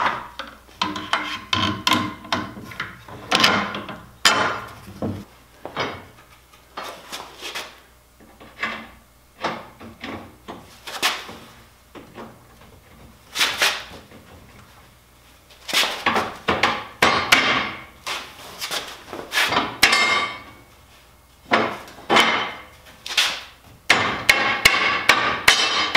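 Irregular knocks and clatter of a pine board fitted with a steel bar and carriage bolts as it is handled and fitted against the table saw's rear edge, in clusters of sharp hits with short pauses between.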